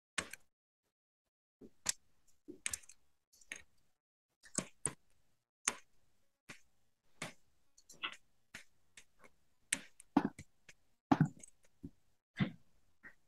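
Computer keyboard keys clicking as a name is typed: about twenty separate keystrokes at an uneven pace, with short pauses between them.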